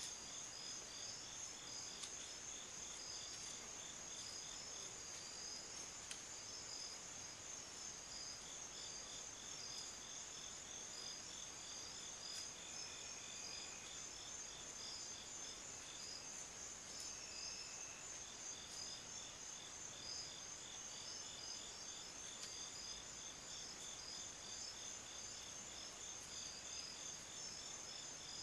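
An insect chorus of crickets at dusk: several high, continuous trills layered over an evenly pulsed chirping of a few chirps a second, with a few short higher notes here and there.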